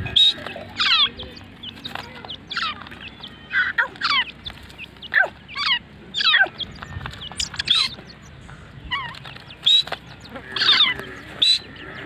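Grey francolins calling: a run of short, sharp notes, each falling in pitch, repeated irregularly about once or twice a second.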